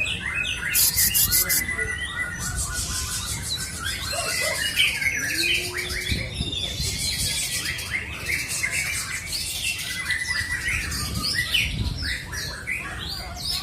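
White-rumped shama giving a busy run of harsh squawks and quick chirping notes. Short bursts of a high, rapid rattle come in between them several times.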